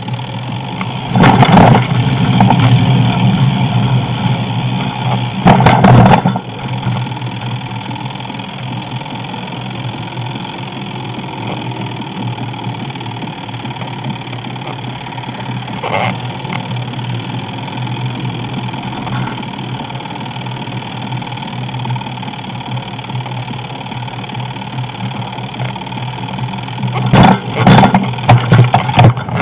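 Steady rolling and wind noise on a bicycle-mounted camera's microphone during a ride, with a low hum underneath. Loud jolts or rattles break in about a second in, again around six seconds in, and in a quick cluster near the end.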